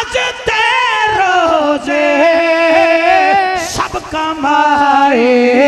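A man's voice singing long, ornamented held notes of a Punjabi manqabat refrain. The pitch wavers and glides, stepping lower about a second in and again near the end.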